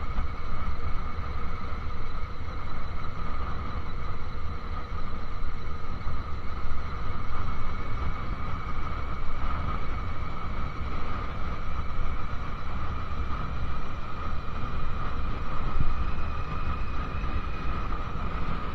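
Wind buffeting the microphone over the steady running of a 2001 Honda CBR600F4i's inline-four engine as the motorcycle cruises along at an even speed. The wind rumble is the loudest part, with a steady engine whine above it.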